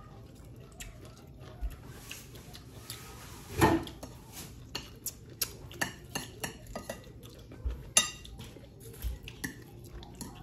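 Metal spoon clinking and scraping against plates and bowls: a scatter of light clicks, with one louder knock about four seconds in.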